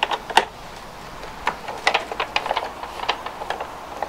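Small clicks and knocks of a screwdriver and fingers on the hard plastic inside a Flymo Easilife 150 robot mower being taken apart. There are a couple of sharper knocks right at the start, then a run of light, irregular clicks.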